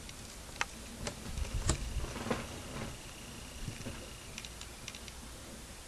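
Faint handling noises: a few light clicks and taps and a low rumble as the plastic model truck is moved about in front of the camera. A faint steady whine stops about four seconds in.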